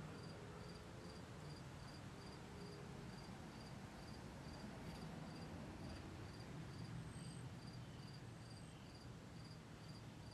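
A cricket chirping steadily, about two chirps a second, faint over a low steady rumble.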